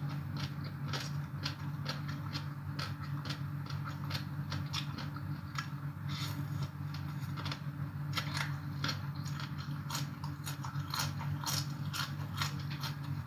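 Close-up chewing and crunching of shredded green papaya salad and rice noodles: many quick, crisp clicks and smacks, over a steady low hum.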